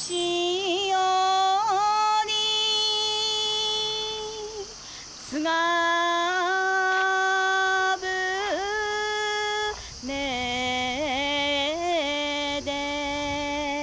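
A woman's solo voice singing a Japanese boatman's folk song without accompaniment, holding long notes with wavering ornaments, in three long phrases with short breaths between.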